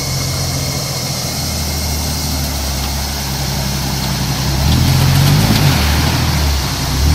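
Engine of a red Jeep-style off-road vehicle running at low speed as it fords a shallow river, its wheels throwing up spray over the rush of the water. The engine grows louder about two thirds of the way in as it comes close.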